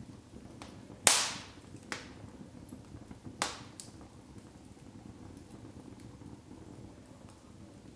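Split wood logs burning in an open fireplace, crackling over a low steady rustle of flame. A sharp loud pop comes about a second in, a smaller one just after, and another pop about three and a half seconds in.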